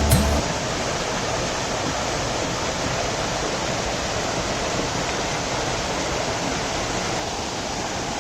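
Waterfall pouring, a steady rushing noise loud enough to drown out speech.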